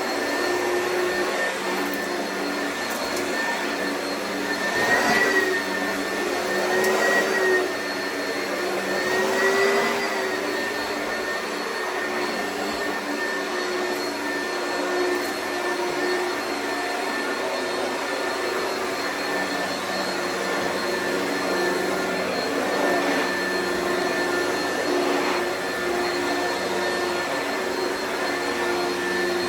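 Oreck vacuum cleaner running steadily with a whining hum. Its pitch wavers and it gets briefly louder a few times between about five and ten seconds in.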